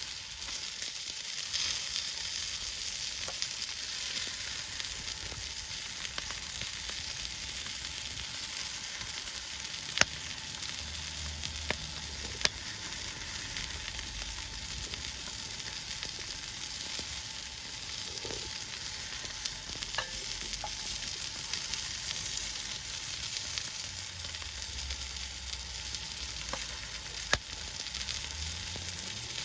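Food sizzling steadily in a hot pan, with a few sharp pops here and there.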